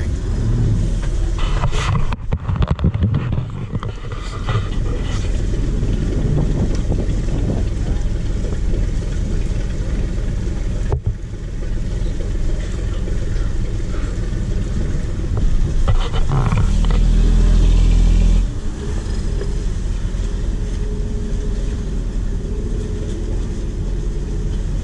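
Boat engine running with a steady low rumble. It grows louder for about two seconds a little past the middle, then settles back.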